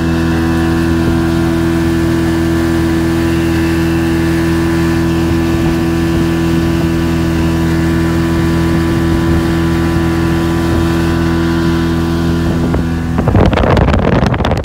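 Mercury outboard motor running steadily at a constant cruising speed, driving a small runabout through the water. About a second before the end, a louder rough rushing noise rises over the engine.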